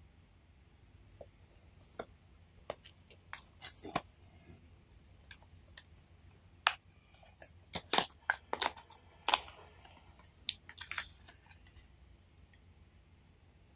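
Small cardboard blind box being handled and opened by hand: scattered sharp clicks and taps with short scraping rustles, the loudest a few strokes about 8 to 9 seconds in.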